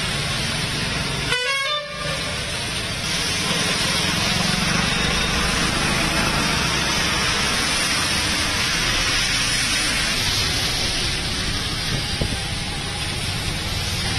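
Heavy rain pouring down on a flooded road, with traffic going by through the water as a steady rushing hiss. A vehicle horn sounds briefly about a second and a half in.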